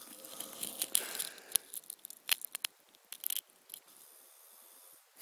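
A sleeper's noisy snoring breath: a long airy breath over the first two seconds with a few small clicks, then a quiet pause before the next breath.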